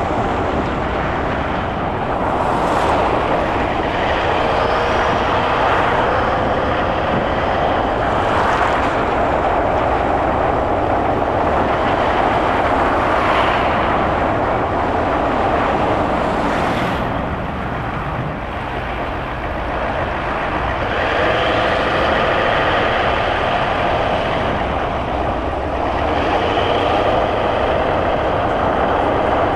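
Steady road noise of a car driving: engine and tyre noise, with a few brief high hisses along the way.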